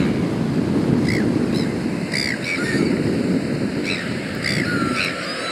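Black-billed gulls giving short, high calls, several in a row, with a longer falling call near the end, over the louder steady rush of river water running over rocks and wind on the microphone.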